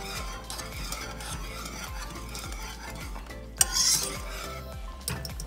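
Wire whisk stirring a thick cream sauce in a metal saucepan, quick scraping strokes against the pan as xanthan gum is whisked in to thicken it, with one louder scrape about three and a half seconds in.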